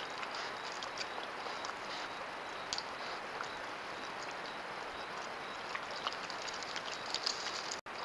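Mountain lions drinking at a watering hole: faint, irregular clicks and taps of lapping over a steady hiss, which cuts out for an instant near the end.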